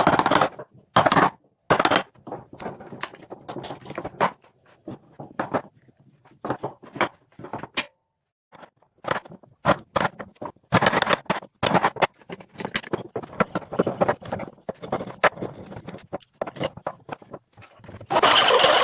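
Irregular series of short knocks and scrapes from hand-tool work on a pine block. Near the end a steady, noisy power tool starts up.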